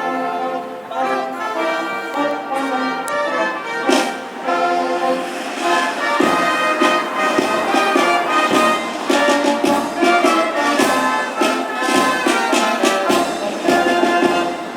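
Brass band playing, with trumpets and trombones carrying the melody. A steady, repeating bass line joins in about six seconds in.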